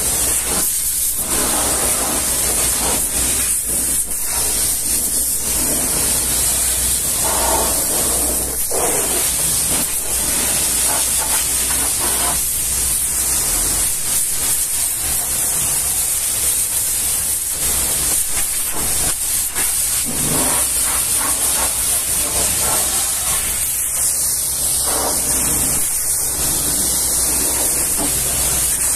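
High-pressure washer jet blasting mud off a truck's wheels, mudguards and spare tyre: a loud, steady hiss whose tone keeps changing as the spray moves over rubber and metal, with a steady low hum underneath.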